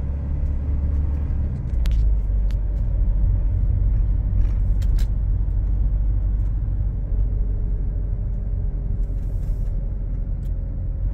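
A car being driven, heard from inside the cabin: a steady low rumble of engine and road noise, with a few brief clicks.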